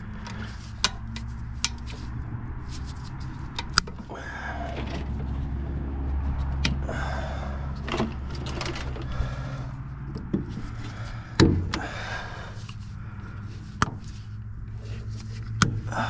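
Hands working a scrapped air conditioner: scattered clicks, knocks and scraping rattles as wires are pulled out of it, with one sharp clank about eleven seconds in. A steady low hum runs underneath.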